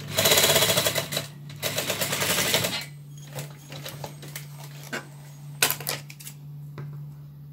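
Frister+Rossmann FR101M industrial straight-stitch sewing machine stitching in two fast bursts of about a second each, a rapid rattle of needle strokes. Afterwards its motor keeps humming steadily while a few clicks sound as the fabric is handled.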